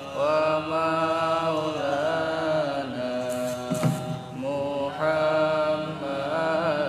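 Arabic shalawat to the Prophet Muhammad chanted in long, drawn-out held notes that waver slowly in pitch, with the words "…wa maulana…". There is a single brief knock about four seconds in.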